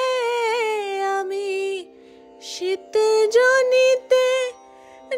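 A woman singing a Bengali song, holding a long note that sinks in pitch, then after a brief pause about two seconds in, singing a few short phrases over a steady drone accompaniment.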